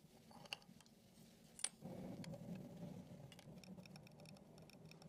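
Faint clicks and taps of metal tweezers on a rusty watch movement, with one sharper click about a second and a half in and a quick run of light ticks near the end. A low steady hum comes in just after the sharp click.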